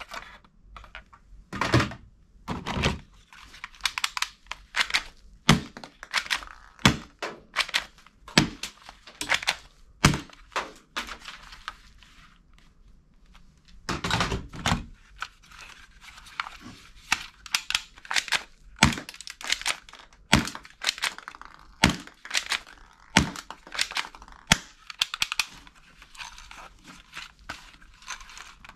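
Plastic toy guns being handled and set down among others in a box: irregular clacks and knocks of hard plastic with light rustling between, and a short lull about halfway.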